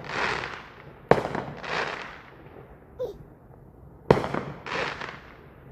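Fireworks going off: two sharp bangs, about a second in and about four seconds in, each followed by a rushing hiss that swells and fades over a second or so.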